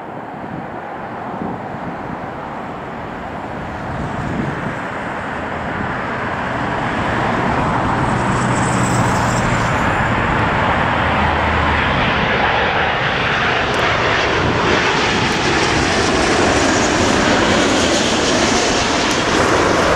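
Jet engine noise of a British Airways Boeing 777-200ER's Rolls-Royce Trent 800 engines on final approach, descending low toward the runway. The noise grows louder over the first several seconds as the airliner nears, then stays loud and steady.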